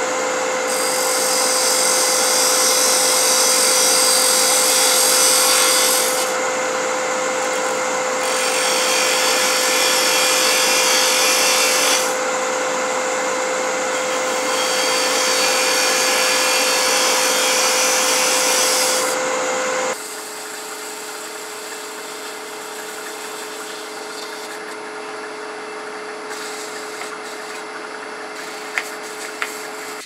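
Wood lathe running with a steady hum while a 3/8-inch spindle gouge cuts a cove in the spinning workpiece: three passes of hissing cutting noise, each several seconds long. About two-thirds of the way through the cutting stops and the lathe sound changes to a quieter, steady hum.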